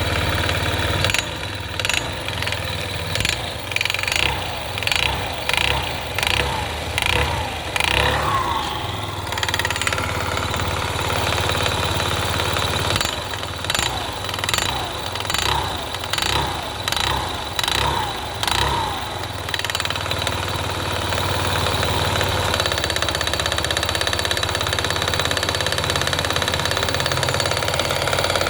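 Yamaha Gear scooter engine idling with a knock in the motor. The throttle is blipped about once a second in two runs of quick revs, and after that it settles back to a steady idle.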